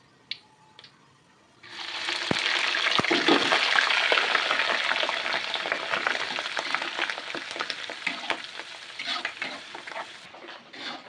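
Food frying in hot oil in a pan: a loud crackling sizzle starts suddenly about two seconds in, then slowly dies down. A few light clicks come before it.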